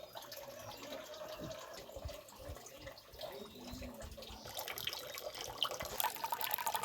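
Rain falling and dripping, its patter growing denser and louder about halfway through.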